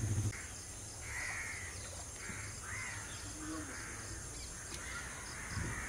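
Crows cawing over and over, short harsh calls about one a second.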